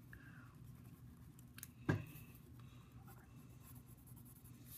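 Faint pencil scratching and rubbing on lined notebook paper, with one sharp knock about two seconds in.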